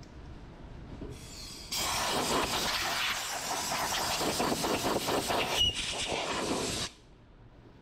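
Compressed-air blow gun hissing as it blows metal filings off an aluminium transmission case. The hiss starts abruptly about two seconds in, runs for about five seconds and cuts off sharply.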